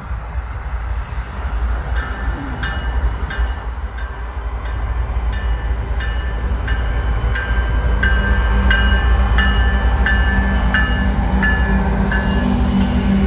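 Union Pacific freight locomotive's bell ringing in even strikes, about one and a half a second, over the rumble of the diesel engines. The engines grow louder about eight seconds in as the lead locomotives pass close by.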